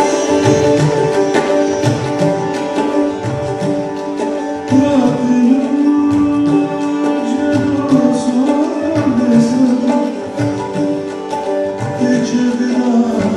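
Hindustani song on sitar with tabla accompaniment over a steady drone. A man's voice sings along with sliding, wavering notes from about a third of the way in.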